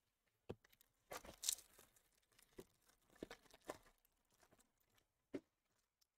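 A 2022 Bowman Baseball Jumbo card pack's wrapper torn open with a short crinkling rip about a second in, among a few light taps and clicks of cards being handled.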